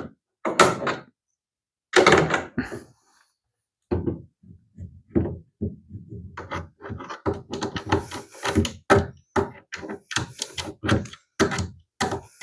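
Hand tools and ladder hardware being handled: a couple of loud knocks, then a dense, irregular run of clicks and clunks as the bolt and nut are worked with pliers.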